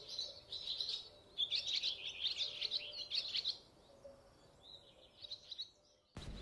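Small birds chirping in quick runs of short, high notes, thinning to a few fainter chirps over the last couple of seconds.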